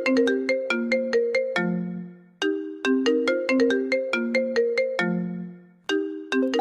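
A phone ringtone: a short melody of quick notes ending on a long low note, looping about every three and a half seconds.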